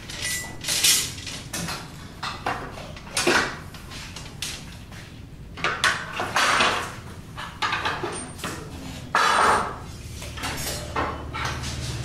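Building-site hand-tool work: metal shovels scraping and clinking against rubble and concrete, with other tools knocking, in a string of short irregular bursts over a low steady hum.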